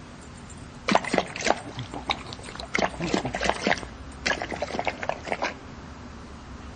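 A large dog lapping liquid from a stainless steel bowl: a quick run of wet laps and slurps, with a short pause, then a second run that stops well before the end.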